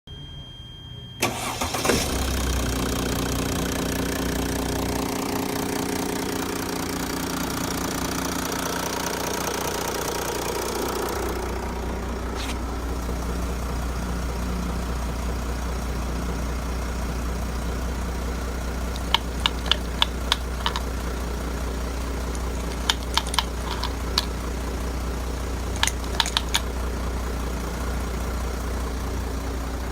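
Mercedes-Benz W212 E-Class CDI diesel engine cranking and starting about a second in. It runs busier for roughly ten seconds, then settles into a steady idle. Later in the idle come several short clusters of sharp clicks.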